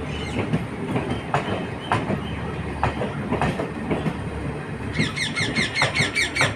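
A train's wheels clattering over rail joints over a steady low rumble. About five seconds in, a rapid high-pitched chirping repeats for about a second and a half.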